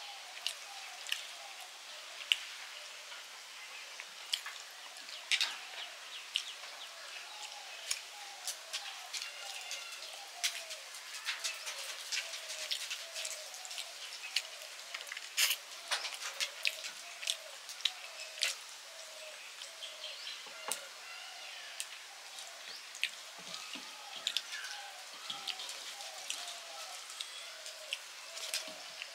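Fingers mashing and mixing rice with fish curry on a metal plate, giving many sharp wet clicks and smacks, and eating by hand near the end. Behind it a short falling chirp repeats steadily.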